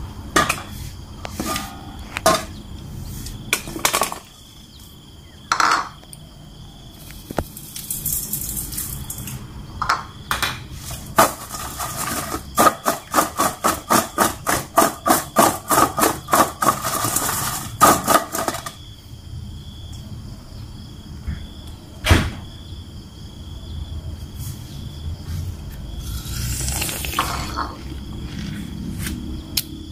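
Star fruit slices being tossed in a stainless steel mixing bowl: a quick, even run of shaking strokes, about three a second, for several seconds midway. Scattered knocks come before it and one sharp knock near the end.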